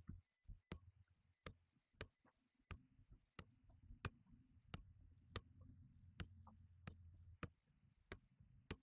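Soccer ball being juggled with the feet: an even run of light taps, foot on ball, about three every two seconds.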